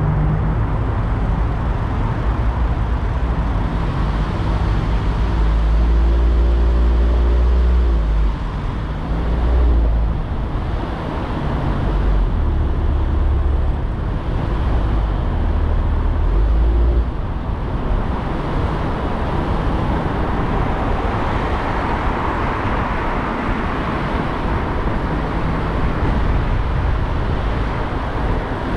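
Car driving through city traffic: engine hum and tyre and road noise. A deep rumble with engine tones fills the first half, giving way after about 17 seconds to a steady road hiss.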